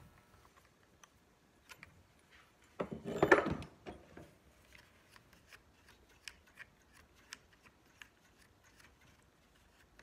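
Small plastic clicks and rubbing as the air filter is worked off a Stihl MS 290 chainsaw, with one louder scrape lasting about a second, about three seconds in.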